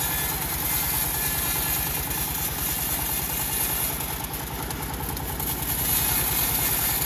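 Engine of a homemade bandsaw sawmill running steadily, with an even low pulsing beat and a high hiss over it; it eases off slightly for a moment past the middle and picks up again.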